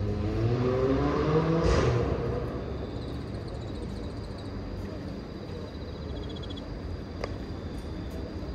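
A motor vehicle engine accelerating, its pitch rising and getting louder over the first two seconds, then fading into a steady low hum. A faint, rapid high-pitched chirping follows in the middle.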